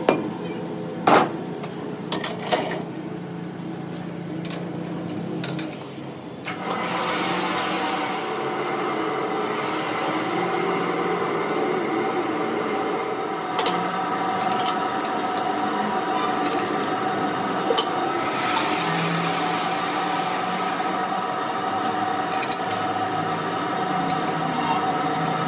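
A few sharp metal knocks and clanks as an axle shaft is worked into a lathe's four-jaw chuck. About six seconds in, shop machinery starts suddenly and runs with a steady mechanical hum, with small clicks over it.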